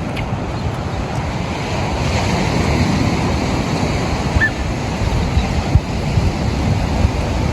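Rough sea surf washing ashore in a steady wash, with wind buffeting the microphone.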